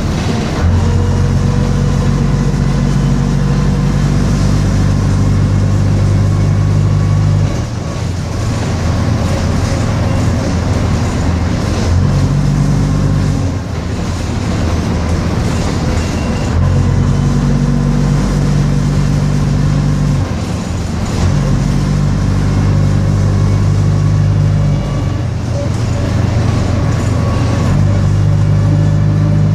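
Bristol RELL6L bus engine running under way, its low note shifting in steps several times with brief dips in loudness, over steady road and body noise.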